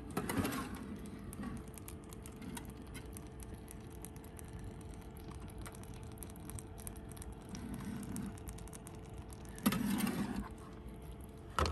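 Faint handling of a stainless steel oven tray in a 12-volt portable oven, over a faint steady hum. There is a sharp click at the start, and about ten seconds in a brief scrape as the tray is slid out on its wire rack.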